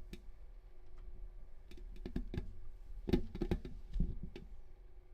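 Scattered light clicks and small knocks of something being handled, about a dozen in all, bunched most thickly and loudest around three seconds in, over a faint steady hum.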